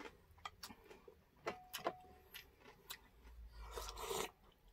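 Soft eating sounds: faint clicks and scrapes of a metal spoon on dishes, then a short sip from a spoon near the end.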